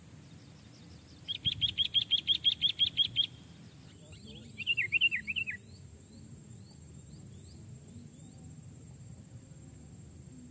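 Sooty-headed bulbul calling: a fast run of about a dozen sharp, even notes, then a short warbled phrase of falling notes about four seconds in, followed by fainter scattered chirps.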